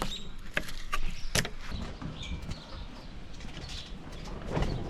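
Scattered sharp clicks and knocks of handling work, with a few faint short chirps in between.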